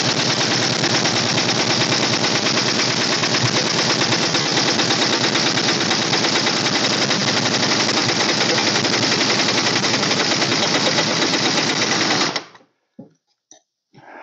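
Large pneumatic impact wrench hammering continuously on a seized nut on a hydraulic cylinder rod, stopping abruptly about twelve seconds in without breaking the nut loose. A few light knocks follow.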